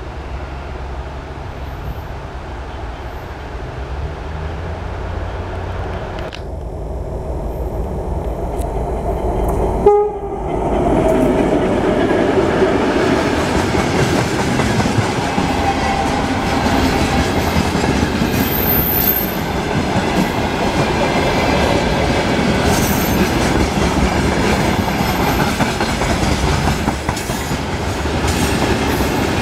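2M62 diesel locomotive approaching, its two-stroke diesel engines rumbling low and growing louder, with a short horn blast as it passes about ten seconds in. Then the freight wagons roll by with a steady clickety-clack of wheels over the rail joints.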